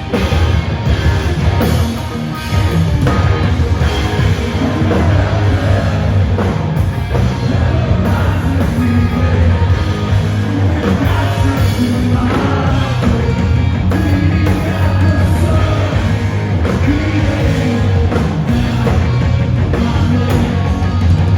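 Loud live rock music from a band on stage, with singing over drums and guitars.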